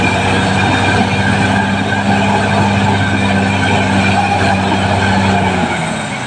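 Caterpillar D6R XL bulldozer's diesel engine running steadily under load, with a dense clattering of tracks and machinery; the engine tone drops off near the end.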